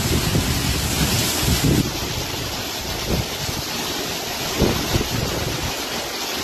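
Heavy downpour: a steady hiss of rain, with wind gusting against the microphone in low swells several times.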